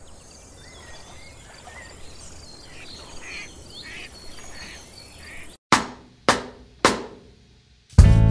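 Faint hiss with small high chirps, then three loud percussive drum-like hits about half a second apart, each ringing out and dying away; music kicks in at the very end.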